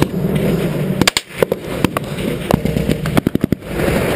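Gunfire in a firefight: scattered single shots, then a rapid automatic burst of about six shots a little past three seconds in.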